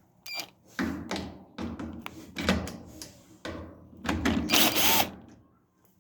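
Clunks, knocks and rattling of metal parts on a washing machine being worked on, about one every second, with a longer, harsher burst of noise about four seconds in.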